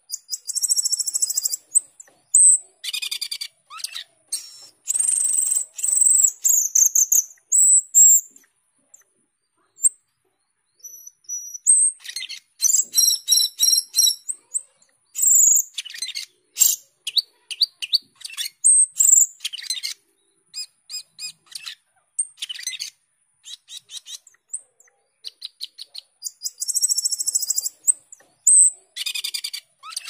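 Asian glossy starling (cucak keling) singing in spurts: fast buzzy trills, high whistled notes and short chirps, with pauses of a few seconds between bouts.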